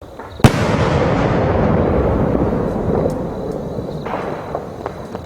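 Large aerial firework shell bursting with one loud bang about half a second in, followed by a long, slowly fading rumble and hiss. A second, quieter burst comes just after four seconds.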